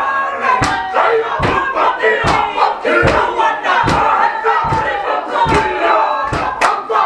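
A Māori group performing a haka: many voices shouting a chant in unison, with a thud keeping time about every 0.8 seconds.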